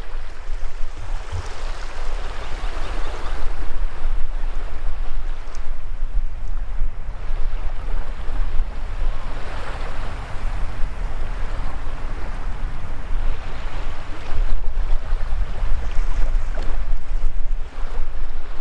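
Small waves washing up and draining back over wet sand at the water's edge, swelling and fading several times. Underneath runs a steady low rumble of wind on the microphone.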